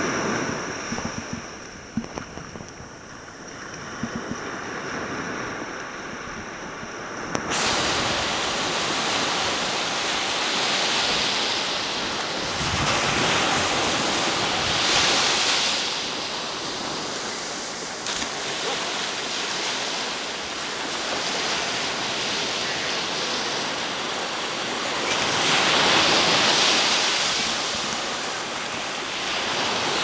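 Ocean surf breaking and washing up the beach, a steady rush that swells as each wave comes in and eases between them. It is quieter and duller at first, then turns suddenly louder and fuller about seven seconds in.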